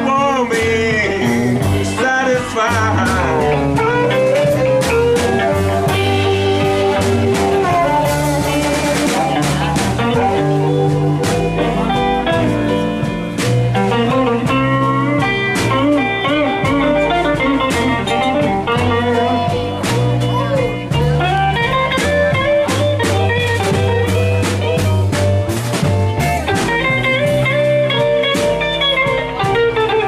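Live blues band playing an instrumental passage: electric guitars, upright double bass and drums keeping a steady beat, with bending guitar notes over a walking bass line.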